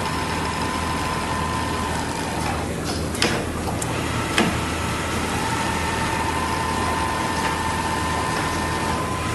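Richpeace automatic sewing machine running, with a steady low hum and a motor whine. The whine winds down and stops about two and a half seconds in, then winds back up about five seconds in. Two sharp clicks come in between.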